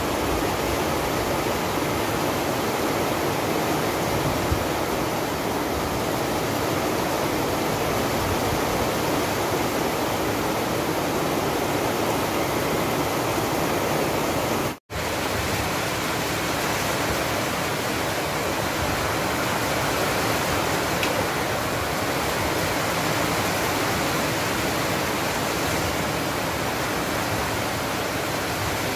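Heavy rain pouring steadily onto corrugated metal roofs, a dense, even hiss that breaks off for an instant about halfway through.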